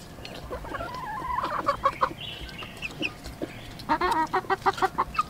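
A chicken clucking in two runs of quick, pitched clucks, one about a second in and another near the end.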